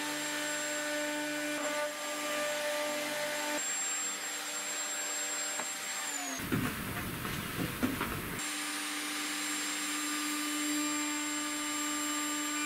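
Triton router in a router table running with a cove bit, along with the dust extractor, as a solid ash blank is fed across it to cut a groove. A steady motor hum with a high whine, and a rougher noise for about two seconds around the middle.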